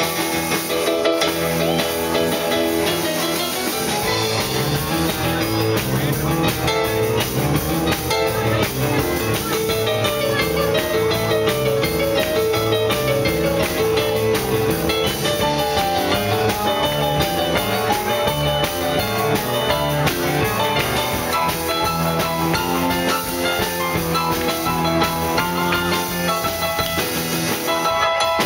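Live rock 'n' roll band playing an instrumental: a keyboard played piano-style leads over electric guitar and a drum kit, with a moving bass line underneath.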